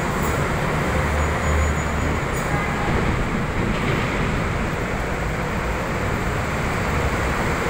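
Steady city road traffic noise from buses and cars on the road below, with a stronger low engine rumble between about one and two seconds in.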